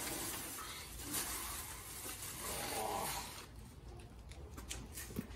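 Rustling and crinkling of a crumpled black plastic bundle being pulled out of a car trunk, for about three and a half seconds, then a few light taps.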